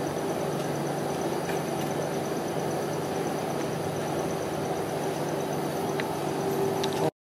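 Steady mechanical hum of a rolled-ice-cream machine's refrigeration compressor running under the cold plate, with a few faint clicks of metal tongs. The sound cuts out suddenly just before the end.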